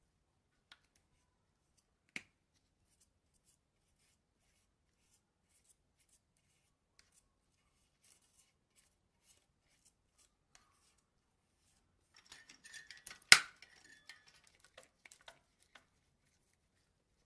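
Near silence with faint ticks, then a bout of plastic clicking and handling noise around one loud, sharp click, as a CPU cooler with push-pin mounts is fitted onto a motherboard.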